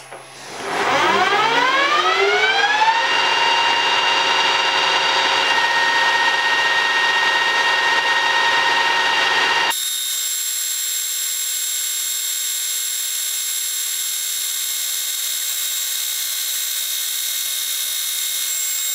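Metal lathe starting up: the motor and spindle whine rises in pitch over about two seconds, then runs steadily. About ten seconds in, the sound abruptly changes to a thinner, quieter, higher whine.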